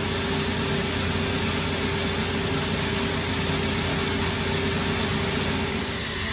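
Duct-cleaning vacuum machine running steadily: a constant rush of moving air with a steady hum and one held tone.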